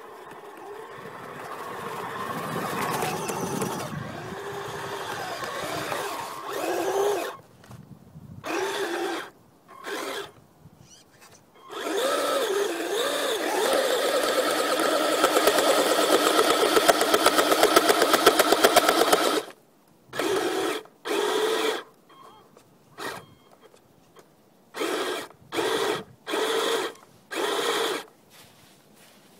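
Kyosho Blizzard SR 2 radio-controlled tracked vehicle's electric motor and gearbox whining, the pitch rising and falling with the throttle. It runs nearly continuously at first, then in short bursts of about a second with pauses between them.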